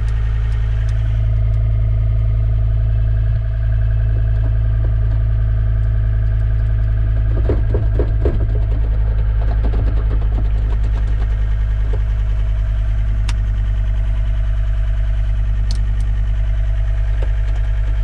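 John Deere compact track loader's diesel engine running steadily, heard from inside its cab. A brief burst of rattling comes about eight seconds in.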